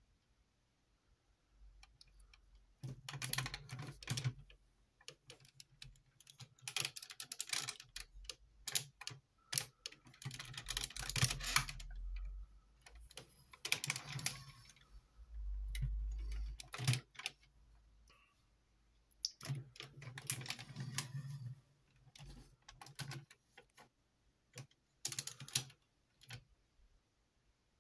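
A plastic Zoids Iron Kong model being handled: its parts click and rattle in irregular bursts, with short quiet gaps between.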